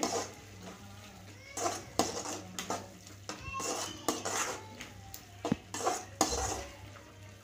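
Metal spatula scraping and knocking against an aluminium kadai in irregular strokes while stirring a thick tomato-onion masala.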